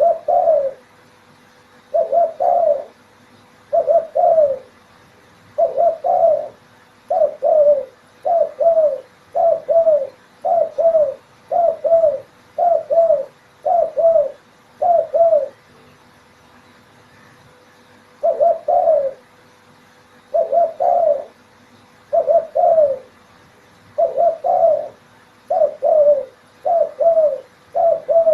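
Spotted dove (derkuku) cooing: short phrases of low coos repeated about every one and a half to two seconds, breaking off for a couple of seconds just past the middle before starting again.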